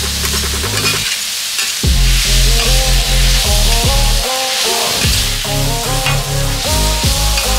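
Stir-fry sizzling on a hot flat griddle while two metal spatulas scrape and toss the food, with background music playing throughout.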